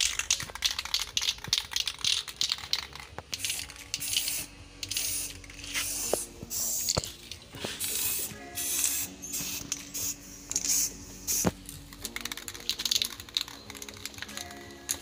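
Aerosol can of clear coat spraying in many short hissing bursts with brief pauses between them, laying down the first coat.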